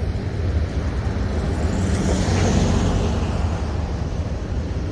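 Freight cars of a long Norfolk Southern manifest train rolling past: a steady rumble of steel wheels on rail with hiss, swelling briefly about two seconds in.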